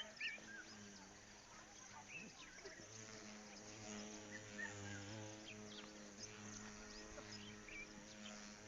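A faint, steady low buzz that wavers slightly, starting about a second in, with scattered bird chirps.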